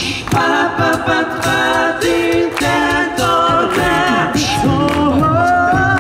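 Six-member a cappella vocal group singing in close harmony through handheld microphones and a PA, several voices holding chords over a sung bass line.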